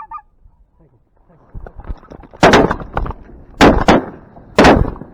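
A short two-note goose honk, then a volley of shotgun fire at geese: four loud shots in just over two seconds, two of them almost together, from more than one hunter's gun.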